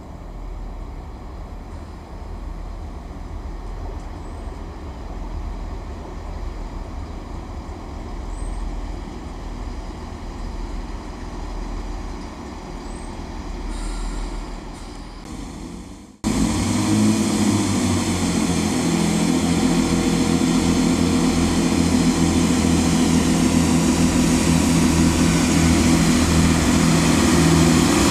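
GWR Class 166 diesel multiple unit running into the platform with a low rumble. After an abrupt cut about sixteen seconds in, its diesel engines are heard up close, much louder, as a steady low hum.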